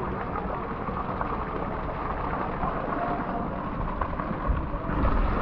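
Muffled, steady rush of pool water heard through a submerged camera microphone, with a low rumble that swells near the end.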